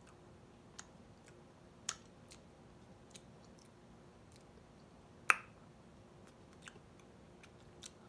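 A person chewing a microwaved mini pizza close to the microphone: scattered soft crunches and mouth clicks, the loudest one a little past halfway, over a faint steady hum.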